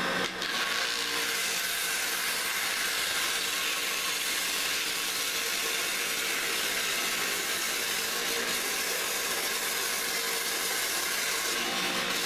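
Homemade dowel-rounding machine running: a 1 hp high-speed WEG electric motor belt-driving a 40 mm shaft and cutter, shaving a cedar strip round as it is fed through. A steady high hiss of cutting with a faint hum underneath, unchanging throughout.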